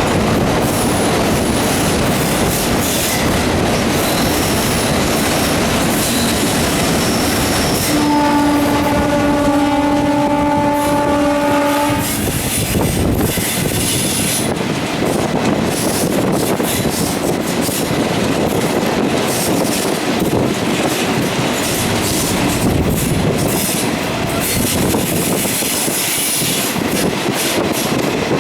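Indian Railways passenger train running along the track, its wheels clattering over rail joints with faint high wheel squeal. About eight seconds in, the locomotive horn sounds one steady blast lasting about four seconds.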